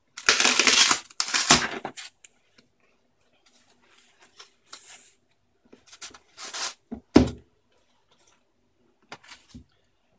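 White packing wrap being slit with a box cutter and torn and pulled off a cardboard box. It makes loud tearing rustles for the first two seconds, softer crinkling after that, and one sharp knock on the wooden table about seven seconds in.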